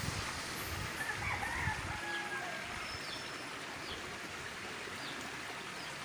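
A rooster crows faintly once, about a second in, over a steady outdoor hiss, with a few faint, short high bird chirps afterwards.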